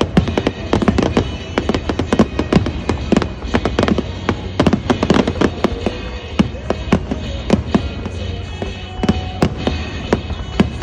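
Fireworks finale: a continuous barrage of aerial shells bursting in quick succession, several sharp bangs a second with their crackle and echo.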